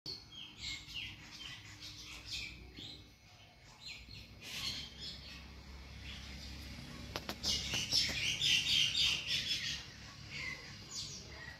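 Small birds chirping repeatedly in short high calls, busiest about two thirds of the way through, with a few sharp clicks just before that, over a faint steady low hum.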